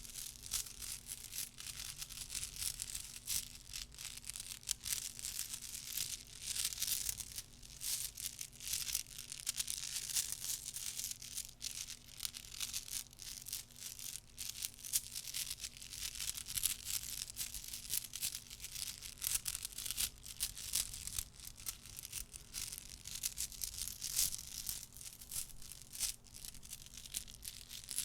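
Soft, rapid, irregular clicking and crackling from small objects handled close to the microphone, a dense stream of tiny clicks with no pauses.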